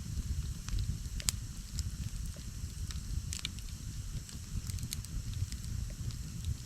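Wood campfire burning, with irregular sharp crackles and pops over a steady low rumble; the sharpest pop comes about a second in.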